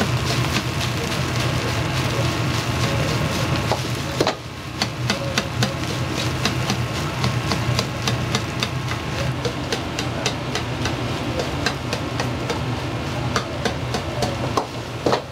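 A metal ladle clacks rapidly against a wok over a steady low burner roar, with sizzling. The sizzling drops away about four seconds in, and the clacks then come at about three a second.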